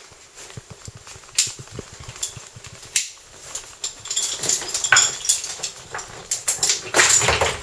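Metal caving gear clinking and scraping against rock as a caver climbs through a narrow passage: scattered sharp clicks at first, then denser clatter and scuffing that is loudest near the end.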